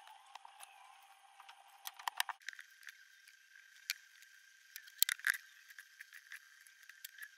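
Hands handling a soft clay pitcher form on a wooden workbench: scattered light knocks and taps, with a cluster of louder ones about five seconds in, over a faint steady high tone.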